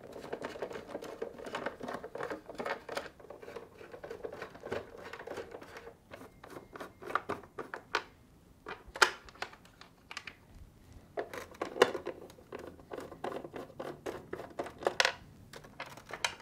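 A 1/4-inch nut driver backing screws out of a refrigerator's metal dispenser shield: a steady run of scratchy grinding and small clicks as the screws turn, with a few sharper clicks in the second half.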